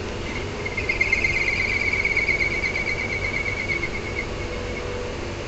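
CNC lathe's carbide turning insert taking a light cut on a spinning bar at slow feed, giving a high-pitched fluttering whine. The whine starts shortly after the beginning and fades out after about four seconds, over the steady hum of the running lathe.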